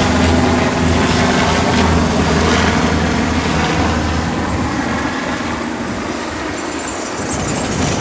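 Airliner jet engines running loud as the plane passes, a broad rushing noise with a steady low hum that slowly fades over the second half.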